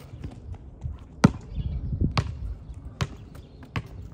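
A basketball bouncing on asphalt: four bounces at uneven spacing, the first, about a second in, the loudest.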